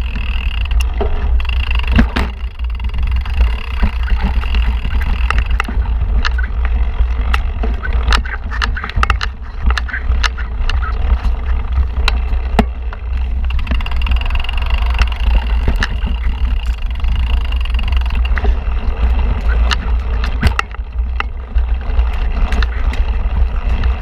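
Mountain bike rolling down a rocky trail, picked up by a camera mounted on the bike or rider: a steady low wind rumble on the microphone, with frequent sharp clicks and rattles as the tyres strike stones and the bike knocks over the rough ground.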